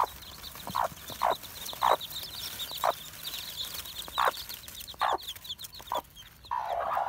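Newly hatched chicks peeping continuously in high, rapid notes while their broody hen clucks, short louder calls every half second to a second.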